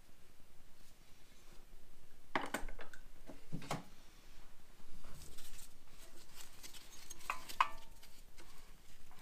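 Metal clinks and knocks of hand work on a small engine opened down to the piston and valves: a few sharp clanks, the loudest near the end ringing briefly.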